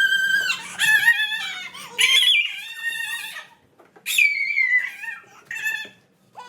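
Young children squealing in very high-pitched voices, about five shrill cries with short gaps between them.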